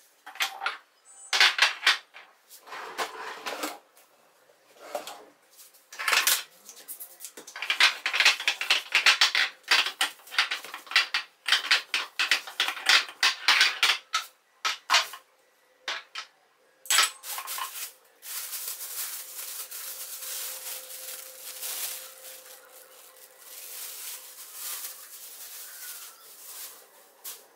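Glass jars and containers clinking and knocking as they are picked up and set down on a hard kitchen countertop, in quick runs of taps. From about 18 seconds in, a steadier rubbing and rustling noise takes over.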